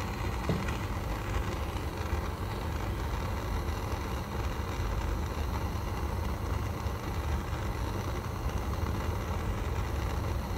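Handheld butane torch burning with a steady rushing hiss as its flame heats a small metal piece to flow solder into the joints.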